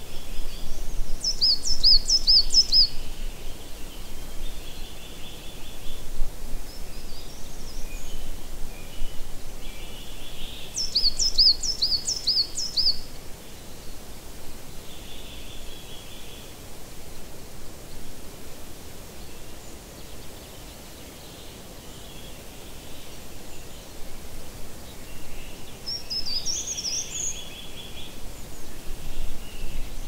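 A small woodland stream running steadily, with a songbird singing a short phrase of quick, high repeated notes twice, about ten seconds apart, and a shorter high call near the end.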